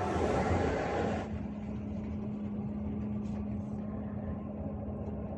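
New LG front-loading washing machine humming: after about a second of rushing noise, a steady hum at one pitch sets in over a low rumble. The owner questions whether this hum is normal for the machine.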